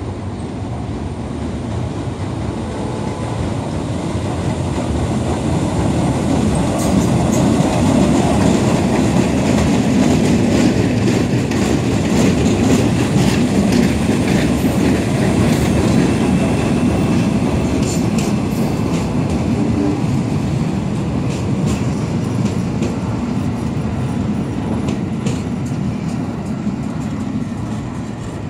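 NYC subway work train of diesel work locomotives hauling flatbed and crane cars rolling past on steel track, its engines and wheels giving a heavy rumble with clickety-clack over the rail joints. It builds up, stays loud through the middle with scattered sharp metallic clicks and squeaks from the wheels, then fades as the train moves away.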